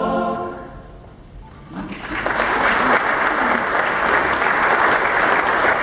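A mixed choir's final held chord of a Hungarian Christmas carol dies away in the hall's reverberation, and about two seconds in the audience breaks into steady applause.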